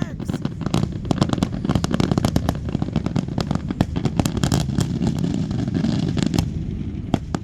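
Rapid barrage of fireworks going off: many sharp bangs and crackles in quick succession over a continuous low rumble, thinning to a few separate bangs near the end.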